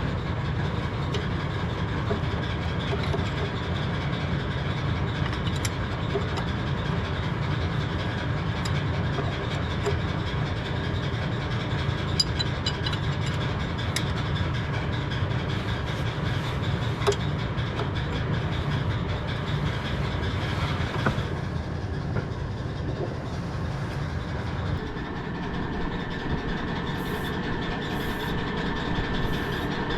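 John Deere 170 skid steer running steadily with a low rumble and mechanical clatter, its tone changing about two-thirds of the way through.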